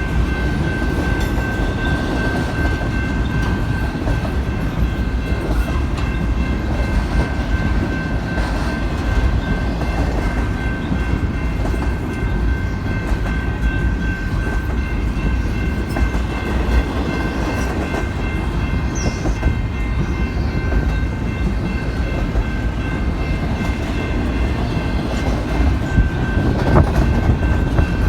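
Intermodal double-stack freight train rolling past with a steady rumble and the clicking of its wheels on the rails. A steady high-pitched ringing tone sits over the rumble.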